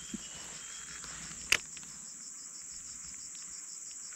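Steady high-pitched trilling chorus of insects in the forest, with a fine even pulse. A single sharp click cuts through it about a second and a half in.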